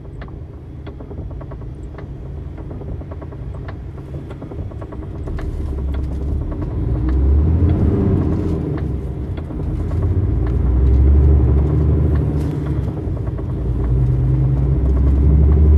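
Heavy truck's diesel engine pulling away from a standstill and accelerating, heard from inside the cab. The low engine rumble grows louder from about five seconds in, dipping briefly a couple of times before rising again.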